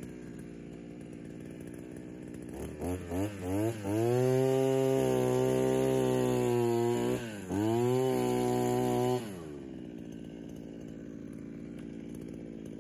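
Engine-driven earth auger idling, then revved in a few quick blips and held at high revs while it bores into the ground. The engine dips briefly partway through and then drops back to idle.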